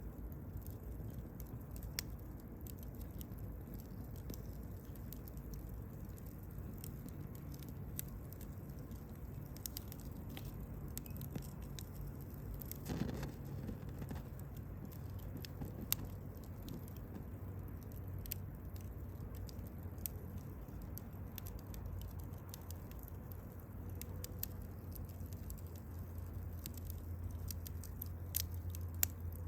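Wood campfire burning: irregular sharp crackles and pops over a low rumble of the flames, with a longer, fuller crackle about 13 seconds in.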